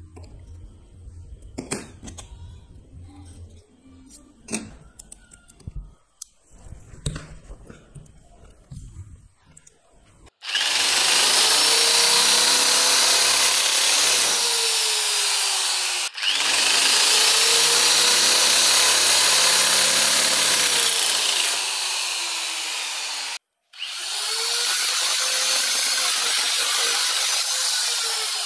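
Dongcheng DJJ32 electric sheet metal shear running and cutting sheet metal: a loud, harsh buzz with a motor whine that rises and sags as the blades work through the sheet. It comes in three stretches split by abrupt breaks. Before it, for roughly the first ten seconds, only quiet clicks and handling noise as an Allen key sets the blade bolts.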